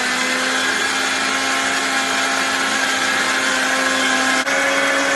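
Optimum 9200A high-speed blender running at full speed, blending a brim-full two-litre jug of thick smoothie. Its motor holds a steady, high, even whine.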